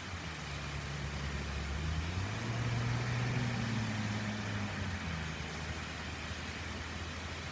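Steady rain falling, with the low hum of a motor vehicle engine under it that grows louder about two seconds in and eases back after about five seconds.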